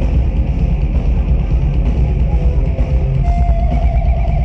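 Heavy metal band playing live: loud drum kit with distorted electric guitars and bass. About three seconds in, a held, wavering high note comes in over the top.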